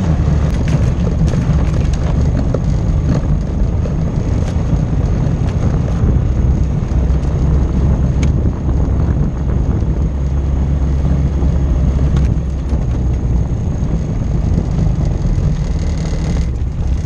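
ATV engine running steadily while riding a rough dirt track, with occasional sharp knocks and rattles.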